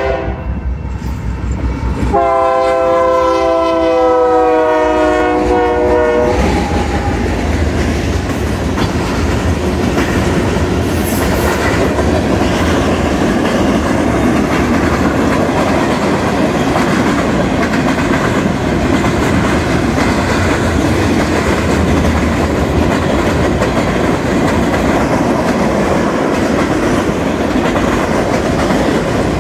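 Union Pacific train's air horn sounding one long chord of about four seconds, a couple of seconds in. The train then rolls past with a steady rumble and clickety-clack of wheels over the rail joints.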